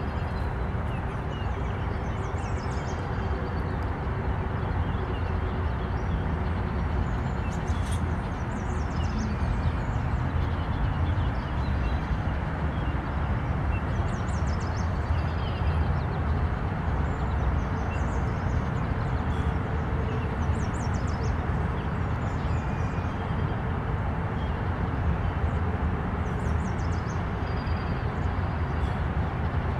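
Steady low rumbling noise throughout, with faint high bird chirps now and then.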